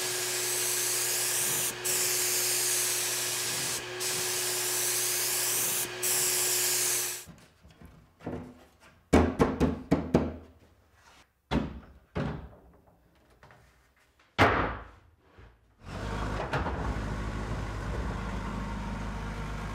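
Spray gun hissing steadily over a constant hum, cut off briefly three times as the trigger is released, for the first seven seconds. Then a run of sharp wooden knocks and thunks as cabinet panels are handled and fitted. About sixteen seconds in, a steady low machine rumble starts.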